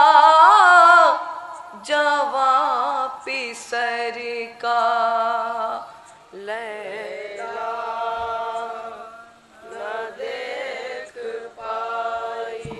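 A group of young men chanting a noha, a Shia mourning lament, unaccompanied into a microphone, in long held phrases with short breaks between them.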